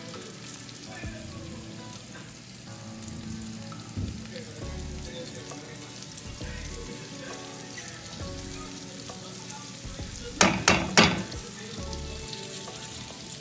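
Pan of black cod sizzling steadily as it slow-cooks, with three sharp clinks in quick succession about ten seconds in.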